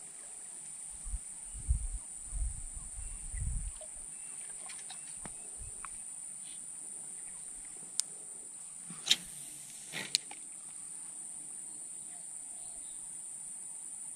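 Steady high-pitched insect chorus, such as crickets. There are a few low thumps in the first four seconds and three sharp clicks between about eight and ten seconds in.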